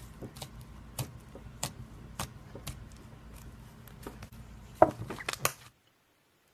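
Slime being handled, with irregular sharp clicks and pops over a low hum; the loudest pops come in a cluster near the end, then the sound cuts off suddenly.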